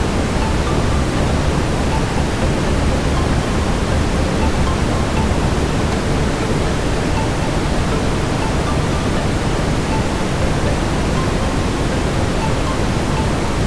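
Steady brown noise: an even, unbroken rushing hiss, heaviest in the deep low end.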